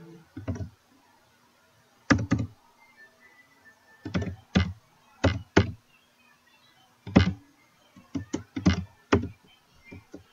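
Computer keyboard being typed on slowly and unevenly: single keystrokes and short runs of two or three, with pauses of a second or two between them.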